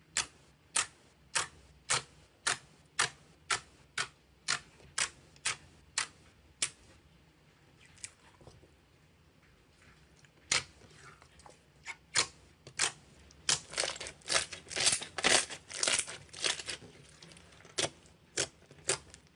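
Slime being worked by hand, giving sharp crackling pops at about two a second at first. After a pause of a few seconds comes a denser run of louder crunchy pops.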